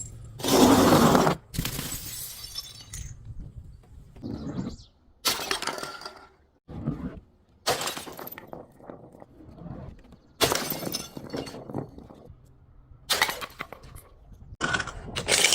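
Glass bottles breaking and shattering in a series of sudden crashes, one every two seconds or so, the longest and loudest about a second in.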